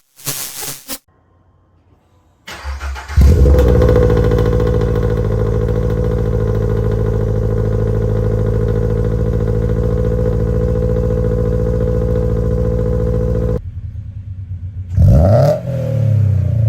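Toyota GR86's flat-four engine cranked on the starter about two and a half seconds in, catching with a brief rev flare and settling into a steady idle. Near the end, after an abrupt break, the engine is blipped once, the revs rising and falling back to idle.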